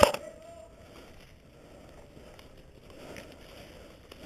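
The end of a full-auto burst from a Cyma AK74M airsoft electric gun, the rapid shots stopping just after the start, followed by faint rustling of dry leaves as the player moves.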